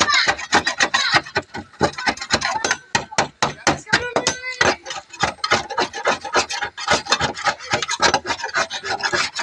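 Metal scraper blade chipping and scraping thick body filler off a car body panel in rapid, repeated strokes. The filler was laid on thick over a dent that was never beaten out.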